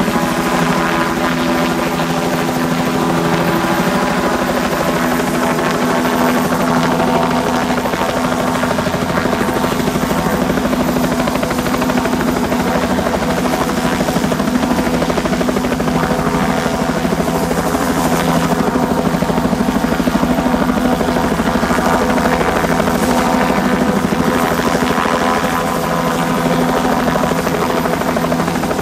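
Bell 206L3 LongRanger helicopter hovering low overhead: its two-bladed main rotor and turboshaft engine run steadily and loudly, holding the same pitch throughout.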